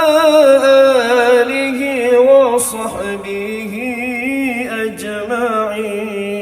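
A solo voice singing a melismatic Arabic sholawat, drawing out long ornamented notes that waver and bend over a steady held low note. The low note steps down about halfway through.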